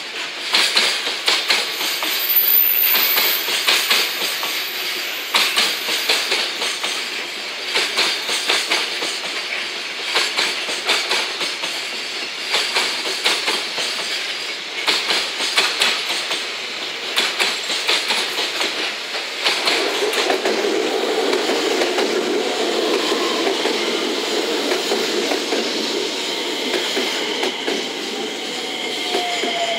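Container freight wagons rolling past, their wheels clicking rapidly over the rail joints. From about twenty seconds in a louder, steadier rail rumble takes over as a JR West 227 series electric train pulls in, and near the end a motor whine falls in pitch as it slows.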